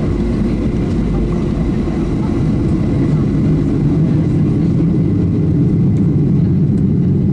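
Cabin noise of a Boeing 737-700 taxiing: a steady rumble and hum of its CFM56-7B jet engines, growing a little louder about halfway through.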